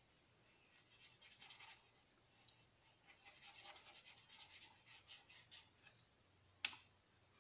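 Colored pencil scratching on paper in quick back-and-forth shading strokes, in two spells. Near the end, a single sharp click.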